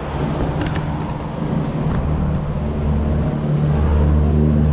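A low, steady motor hum that grows louder about three and a half seconds in.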